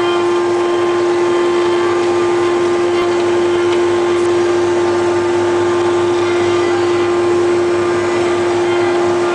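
CNC machine running with a steady hum: one strong constant tone with fainter higher whines above it, unchanging throughout.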